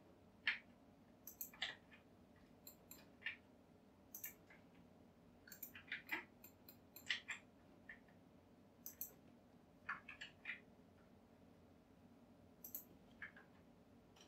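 Sparse, sharp clicks of a computer mouse and keyboard while modelling on a PC, about a dozen spread through, some in quick pairs, over faint room hiss.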